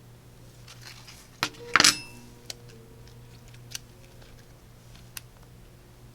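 Small clicks and taps of metal repair tools on a smartphone's parts, with one louder clatter that rings briefly, a little under two seconds in.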